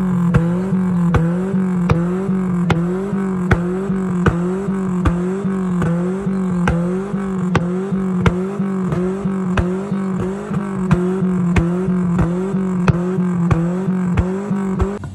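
Toyota Corona's engine idling through a twin-tip aftermarket exhaust, with a steady rhythmic wobble about twice a second and sharp clicks throughout.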